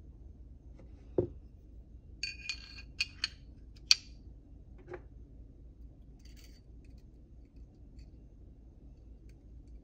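Steel parts of a Browning Hi-Power pistol clicking and clinking together with a bright metallic ring as the barrel is fitted into the slide, with a dull knock about a second in and a smaller one a second after the clicks. Faint ticks follow as the recoil spring goes in.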